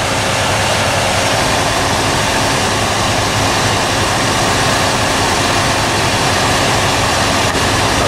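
Steady engine-bay noise of a 2003 Dodge Ram 1500's 4.7-litre V8 running with the air conditioning on maximum and the fan on high: an even rushing noise with a low hum underneath.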